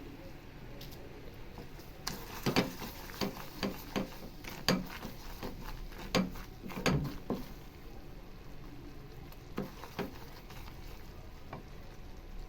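A spoon stirring a thick mixture of ground ginger and country sugar cooking in a small kadai: irregular taps and scrapes of the spoon against the pan over a low sizzle. The taps come mostly in the middle of the stretch and thin out near the end.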